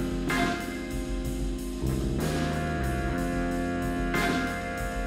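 End-credits music with a steady beat and sustained chords that change every couple of seconds.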